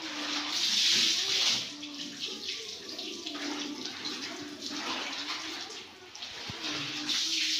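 Water sloshing and splashing in a plastic bucket as wet laundry is lifted out and pushed back under by hand, hand-rinsing clothes. The splashing surges about a second in and again near the end.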